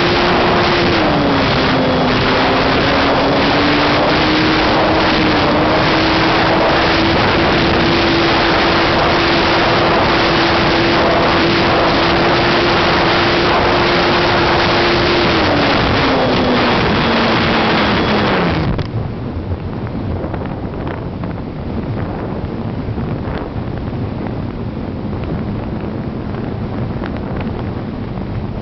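On-board sound of an ST Models Blaze RC glider's electric motor and propeller running, with heavy wind rush. The motor's tone dips briefly near the start, then winds down over about three seconds past the middle and cuts out, leaving quieter airflow noise as the glider flies unpowered.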